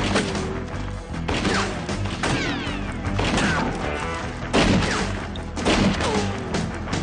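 Dramatic background music under a run of about six sharp cracks, roughly a second apart, each trailing a whine that falls in pitch, like gunshots with ricochets.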